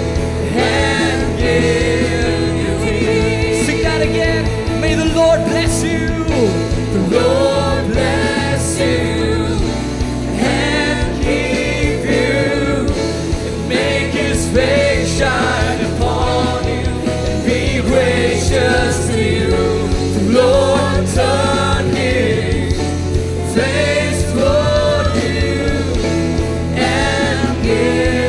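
Contemporary worship song performed live: a male lead vocalist sings over a band of drums, bass guitar and electric guitar.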